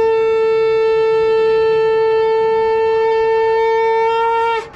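Conch shell (shankh) blown in one long, steady, loud note, held for about four and a half seconds and then cut off sharply near the end.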